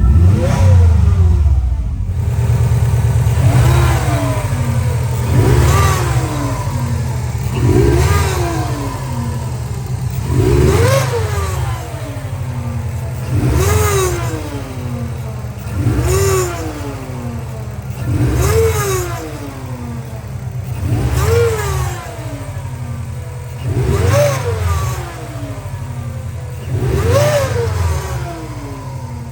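Subaru EJ205 turbocharged flat-four revved in short blips about every two and a half seconds, each one a quick rise and fall in pitch over a steady idle. The abnormal noise is traced to the turbocharger: its compressor wheel was found chewed up and its shaft loose end to end.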